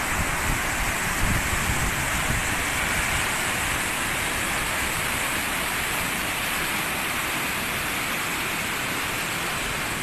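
Floodwater pouring over the broken edge of a collapsed asphalt road into the hollow beneath and running across the flooded surface: a steady rushing of water.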